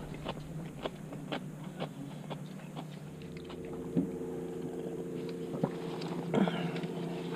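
Light clicks, taps and chewing of a meal being eaten. A low steady engine hum comes in about three seconds in.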